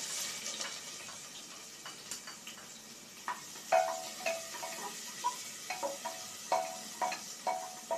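Chopped onion sizzling as it drops into hot oil in an aluminium pressure cooker, the hiss strongest at first and slowly fading. From about three seconds in, a wooden spatula stirs it, knocking against the pot with short ringing clinks about once or twice a second.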